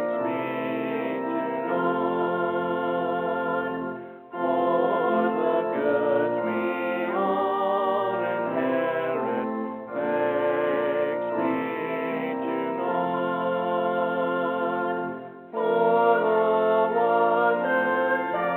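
A hymn sung with instrumental accompaniment, with held notes and two brief breaks between phrases.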